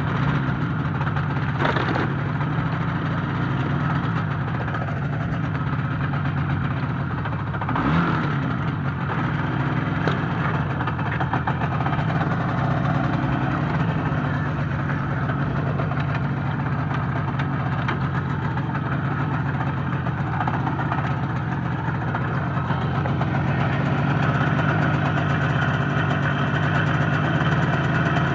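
IZh Jupiter-5 motorcycle's two-stroke twin engine running steadily, with a couple of brief knocks about two and eight seconds in, getting a little louder near the end.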